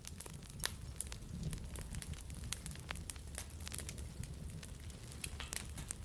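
Small wood fire of sticks and twigs burning, with frequent sharp irregular crackles and pops over a low steady flame noise; one pop under a second in is louder than the rest.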